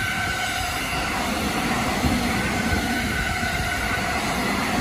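Long JR East electric commuter train passing at speed: a steady rumble of wheels on rail, with a steady high whine running through it.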